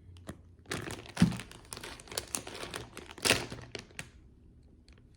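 Packaging crinkling and rustling as it is handled, with a sharper knock about a second in, for about three seconds before it stops.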